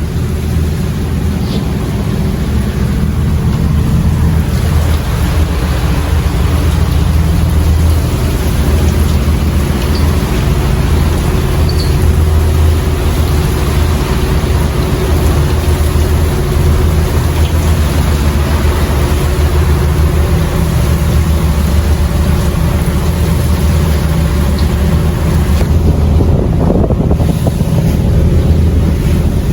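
Boat engine running steadily under way, a deep, even hum with wind buffeting the microphone.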